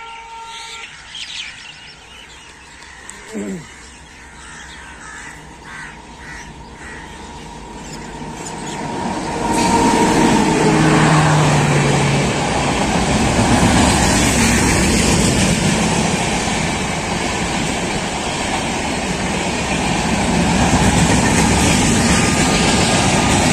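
Express passenger train passing through a station at speed. Birds chirp over a quiet, growing rumble. About ten seconds in, the locomotive arrives with a brief horn, and the loud steady rush of the passing coaches follows.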